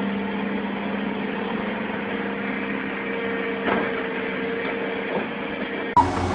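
Heavy machine's engine running steadily at a constant pitch. Near the end the sound changes abruptly and a reversing alarm begins beeping.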